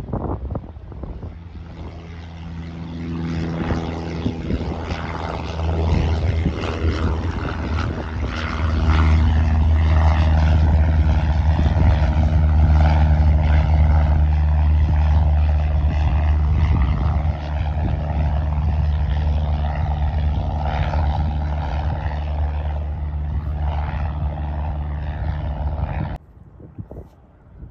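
Single-engine piston light plane flying past, a steady engine-and-propeller drone that swells as it comes close, eases slowly, then cuts off suddenly near the end.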